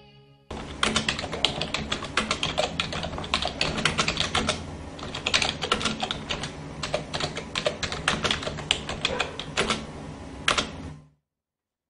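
Typing sound effect: rapid, irregular keystrokes clattering on as on-screen text is typed out, stopping abruptly about a second before the end.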